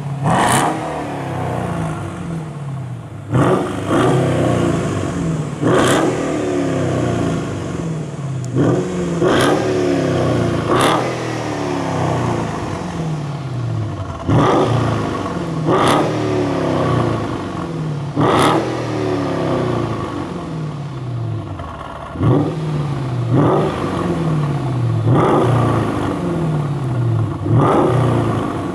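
Mercedes S500 (W221) V8 with a tuned, aggressive-sounding exhaust, blipped again and again from idle: about a dozen sharp revs every couple of seconds, each falling back to idle.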